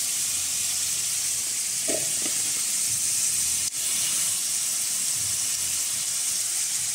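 Goat meat korma sizzling steadily in a karahi on the stove while spices are sprinkled in, with a brief click a little before the midpoint.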